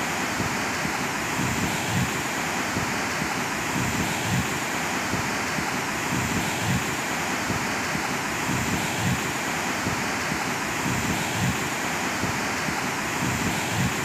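Floodwater of a swollen river rushing steadily through the site of a collapsed highway bridge, with gusts of wind buffeting the microphone.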